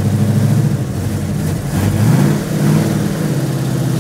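Ford 429 Cobra Jet V8 running in its first start after sitting about two decades, fed from the fuel left in the carburetor bowl. Its revs sag and pick back up twice in the middle, then hold steady.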